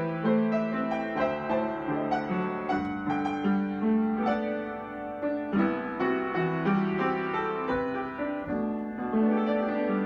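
Solo piano playing a gentle melody over sustained low notes, with new notes struck every fraction of a second.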